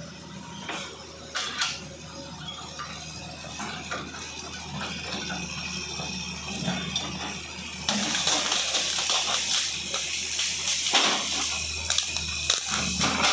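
Hitachi excavator at work in land clearing: its diesel engine runs low and steady under scattered metallic clanks and cracking knocks, and from about eight seconds in a louder hissing crackle joins, with a few sharp knocks near the end.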